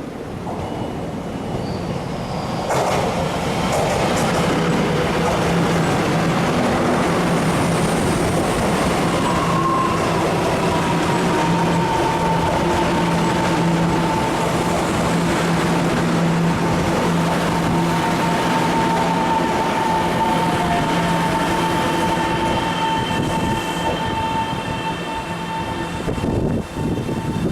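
Taiwan Railways train running past on the tracks: wheels on rail and a steady low hum with a steady whine above it, building up about three seconds in and holding for over twenty seconds before easing off near the end.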